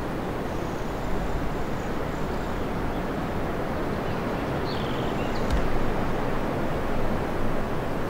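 Steady wind rushing through forest trees, with faint high bird calls over it: a thin call about half a second in and a short curling call about five seconds in.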